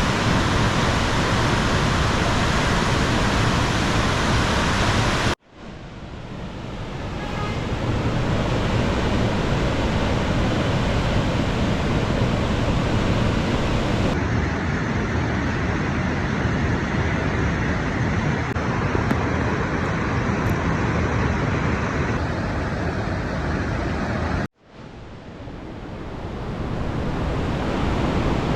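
Steady rush of a waterfall. The sound drops out suddenly about five seconds in and again near the end, each time fading back in over a couple of seconds.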